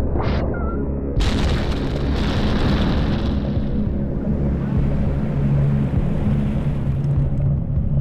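Dramatic score with low held notes, hit about a second in by a sudden heavy boom and rushing wash that fades away over the next three seconds.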